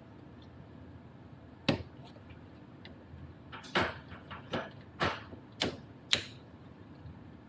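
Hard clicks and knocks of plastic and metal shifter parts being handled and fitted: one sharp click about two seconds in, then a run of about six knocks, some with a short scrape, over the next few seconds, as parts are worked onto a short-shifter box.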